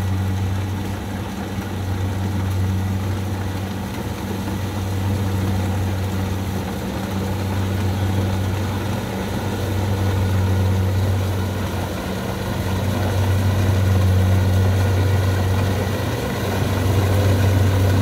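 Kubota DC70 Plus combine harvester's diesel engine running steadily under load with a strong low hum, as the machine cuts and threshes flattened (lodged) rice.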